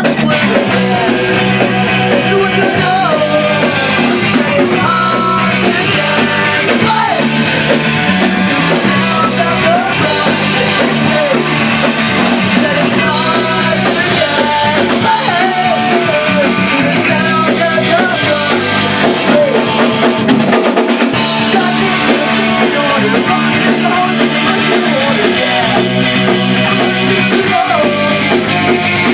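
Punk rock band playing live in a rehearsal room: electric guitar and drum kit with a singing voice over the top.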